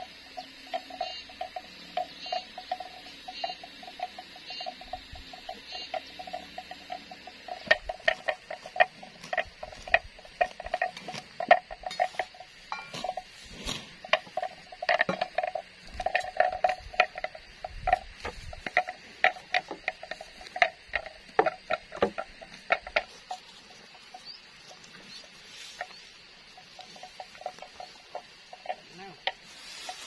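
Irregular sharp wooden knocks and clacks from about eight seconds in until a few seconds before the end, as the pieces of a wooden plow frame are handled and fitted together. Under them is a faint, steady, rapid chirping pulse in the background.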